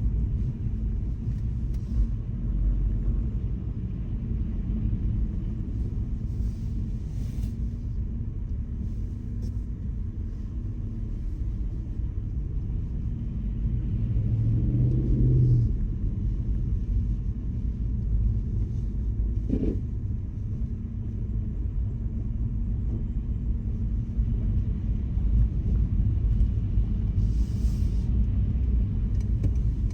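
Steady low rumble of a car driving, with a swell that rises in pitch about halfway through and a short sharp sound a few seconds later.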